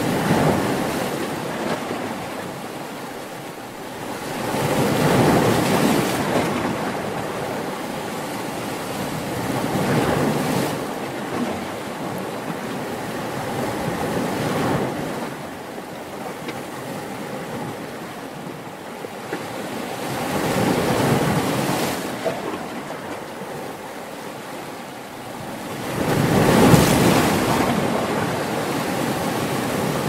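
Ocean surf: waves breaking and washing in, the rushing noise swelling and ebbing about every five seconds, with the biggest wave near the end.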